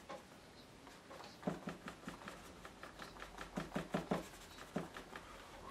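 A sponge dabbing acrylic paint, heard as irregular runs of soft, quick taps.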